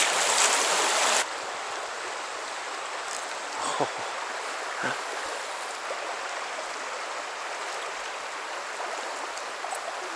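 Flowing stream water rushing steadily, louder for about the first second and then suddenly quieter.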